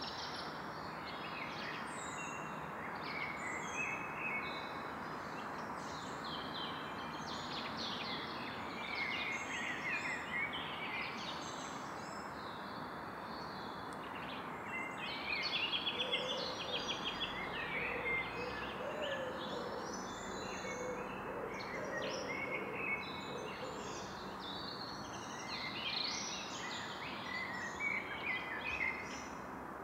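Forest ambience in the evening: many birds calling and singing over a steady background hush. The calls keep going throughout, with a busier run of trills a little past the middle.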